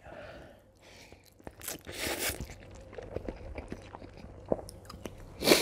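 Close-miked eating sounds from a man's mouth taking in spicy ramen noodles: slurping and chewing with many small wet clicks and smacks, and a brief louder rush of air near the end.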